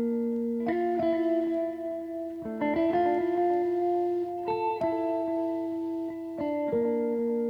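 Background music: a plucked guitar melody with sustained notes that change about once a second.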